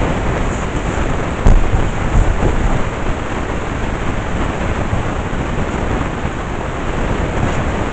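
Vacuum cleaner running with a steady rushing noise, with a few low thumps about a second and a half to two and a half seconds in.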